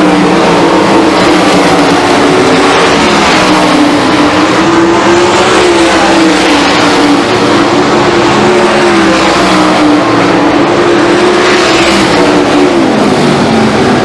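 A pack of 410 sprint cars with 410 cubic-inch V8 engines racing at speed, several engines heard together at once. Their pitch wavers up and down as the cars pass by.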